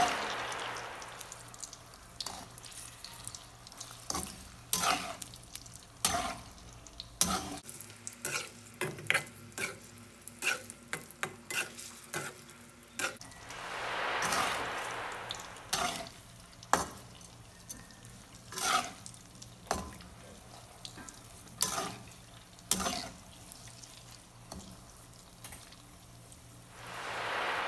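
Metal spatula scraping and clacking against a skillet as saba bananas are stirred and flipped in frying oil with caramelizing sugar. The oil sizzles under the knocks, swelling up three times: at the start, around the middle and near the end.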